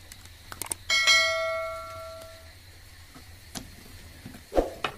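A single bell-chime sound effect, the kind played with a subscribe-and-bell button animation. It sounds once about a second in, just after a couple of quick clicks, and rings away over about a second and a half. A few faint clicks follow later.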